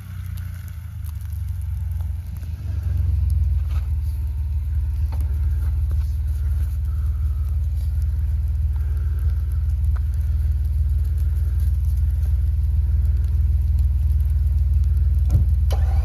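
Jeep's engine running close by, a steady low rumble that grows louder over the first three seconds as it pulls up, then holds steady at idle.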